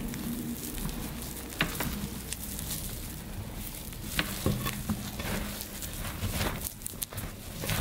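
Wet reformed gym chalk being crushed and worked by hand: a soft, fizzing crackle with many small crunches and a few sharper snaps.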